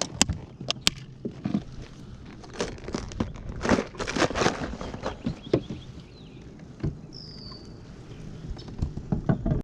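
Irregular knocks, taps and rustling, like handling and movement noise, with one short high whistle falling in pitch about seven seconds in.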